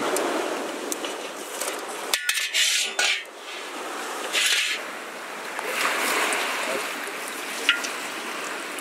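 Hard crab shells knocking and scraping against a steel bowl as whole masala-coated crabs are lifted and handled, with irregular clatters and a couple of brief wet rustles.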